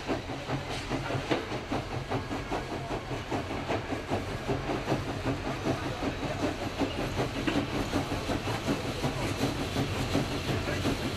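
Steam locomotive running with a freight train: a fast, even clatter over a low rumble.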